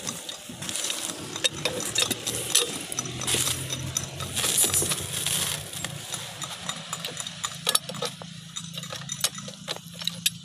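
Two large pipe wrenches working loose the threaded joint between a submersible turbine pump and its steel column pipe: bursts of scraping and rustling, then scattered sharp metal clinks in the second half, over a low steady hum.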